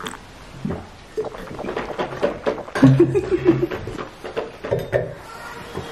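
Close-up mouth sounds of eating and drinking: sips and gulps of milk, slurps, lip smacks and small clicks, with a short closed-mouth groan about three seconds in, a reaction to the burning heat of the extra-spicy noodles.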